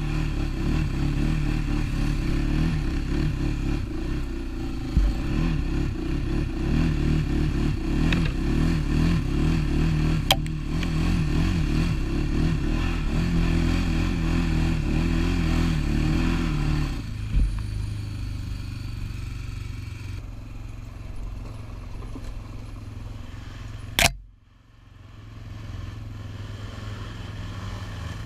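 ATV engine working on a rough off-road trail, its pitch rising and falling with the throttle, then settling to a steady idle about two-thirds of the way through. One sharp knock comes near the end.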